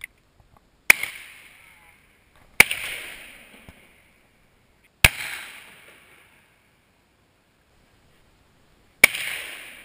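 Four shotgun shots, about a second, two and a half, five and nine seconds in, each a sharp crack followed by an echo that dies away over a second or so.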